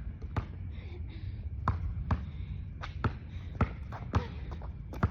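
Basketball bouncing on a hard court: about seven sharp bounces at uneven intervals, over a steady low rumble.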